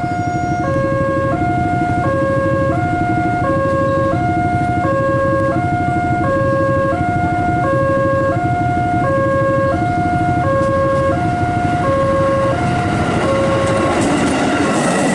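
Railway level-crossing warning alarm sounding a steady two-tone 'ting-tong', the two pitches alternating about every 0.7 s, signalling an approaching train. The alarm stops about a second before the end as the KRL commuter electric train starts rolling past.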